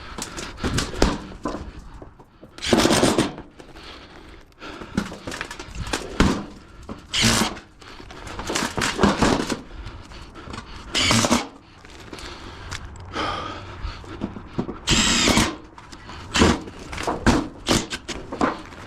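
Power screw gun driving fasteners into steel roofing panels, in repeated short bursts, some about half a second long, with pauses between.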